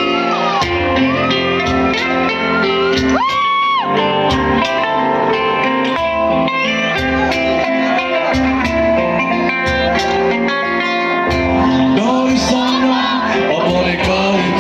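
Live band music with guitar, loud and steady, with some singing and one held high note about three seconds in.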